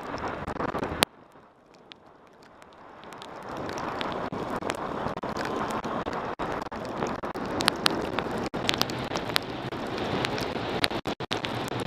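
Wind rushing over a motorcycle-mounted action camera's microphone while riding in rain, with many sharp ticks of raindrops hitting the camera. The rush drops away suddenly about a second in, then builds back up over the next few seconds and holds steady.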